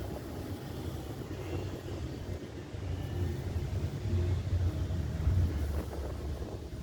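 Wind buffeting the microphone outdoors: a low, unsteady rumble that swells and dips.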